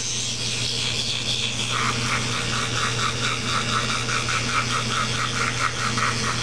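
Electric toothbrush buzzing steadily in use on the teeth. About two seconds in, a quick rhythmic rasp of about four or five pulses a second joins the buzz and stops just before the end.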